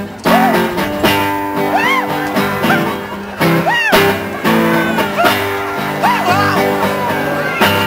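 Upbeat acoustic song with guitar strumming held chords and a melody line that swoops up and down, in an instrumental break between sung verses.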